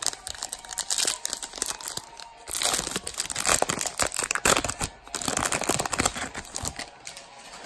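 A baseball card pack being torn open and its wrapper crinkled: a dense run of rustling and tearing, loudest in the middle.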